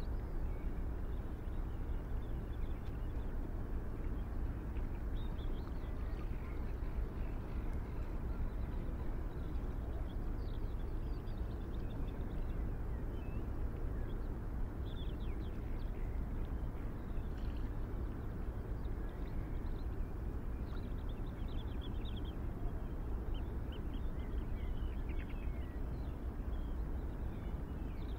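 Steady low outdoor background rumble, with small birds chirping briefly now and then.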